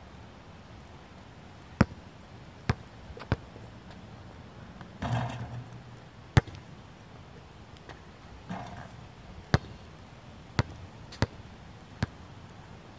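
Basketball bouncing: sharp single bounces at uneven intervals, about eight in all, with a longer, rougher clatter about five seconds in.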